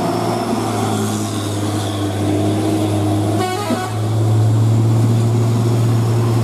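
Heavy cargo truck's diesel engine labouring steadily as it climbs a steep, rain-soaked hairpin, with rain and wet road noise beneath it.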